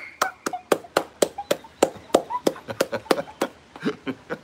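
A quick run of sharp hand claps, about three or four a second, with faint breathless laughter between them.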